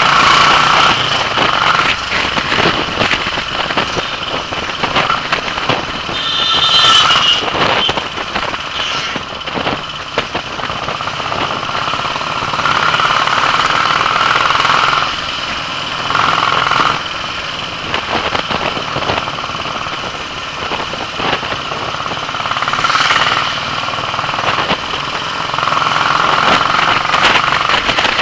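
Royal Enfield single-cylinder four-stroke motorcycle engine running while riding, a fast steady pulsing beat mixed with wind and road noise.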